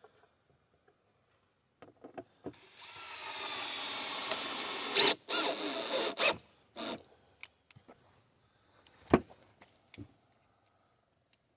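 A handheld power tool runs with a steady whine for about two seconds, then in a few short bursts, followed by scattered clicks and one sharp knock.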